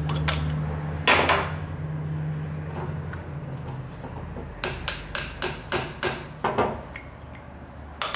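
Sharp metal taps and knocks from tools and carburetor parts being worked on a steel workbench while a small carburetor is stripped down: one knock about a second in, a quick run of about seven taps at roughly three a second midway through, and one more near the end. A low steady hum underneath stops about three seconds in.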